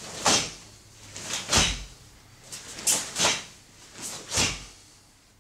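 Sharp swishes and snaps of a karate gi's sleeves, with soft thuds of bare feet on the mats, as a karateka steps through the closing knife-hand blocks of the Shotokan kata Heian Shodan. There are five sharp sounds, roughly one a second, two of them close together near the middle.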